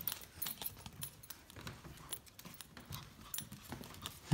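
A puppy's claws clicking irregularly on a hard floor as it walks, faint.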